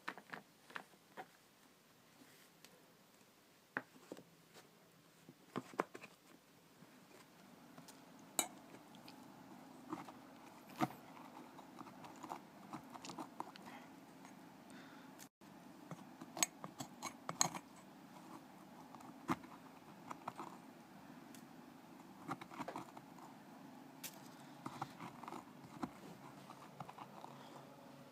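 Faint crunchy rustling with scattered small clicks and clinks, busier in the second half: a hand handling a glass jar of mushroom-mycelium sawdust substrate and digging into the crumbly substrate.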